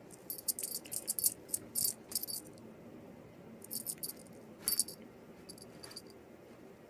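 Light metallic jingling and rattling in short, high-pitched bursts: a busy run in the first two seconds or so, then a few scattered jingles later.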